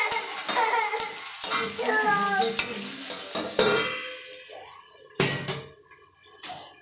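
Steel spatula scraping and knocking against a steel kadhai as pieces of pointed gourd and potato are stirred and frying in oil. Then a steel lid clanks down onto the kadhai.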